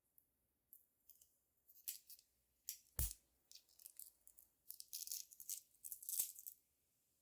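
Small hard beads or gemstone chips rattling and clattering as they are handled, in irregular bursts, with a sharper knock about three seconds in and another near the end.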